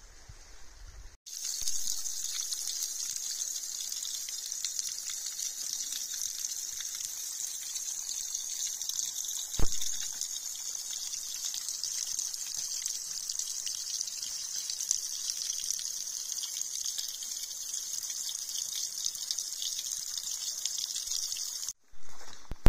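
Rushing creek water, a steady hiss that starts abruptly about a second in and cuts off abruptly near the end. A single sharp knock sounds just under halfway through.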